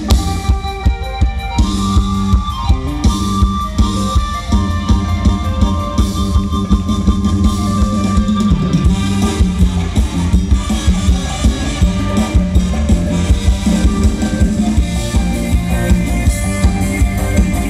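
Loud Isan band music with a drum kit, bass and guitar, keeping a steady beat of about two strokes a second.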